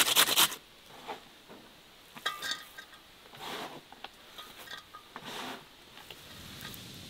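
Carrot being grated on a metal box grater in quick, even strokes that stop about half a second in. Then a few soft, scattered rustles and scrapes as the shredded carrot is handled in an enamel basin.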